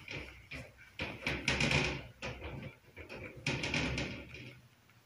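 Close handling noise: a run of rustles, crackles and light knocks as things are handled near the microphone, dying away near the end.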